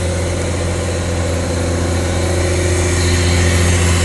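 1985 Pontiac Fiero GT's 2.8-litre V6 running at a steady idle, getting slightly louder about three seconds in, with a freshly installed alternator.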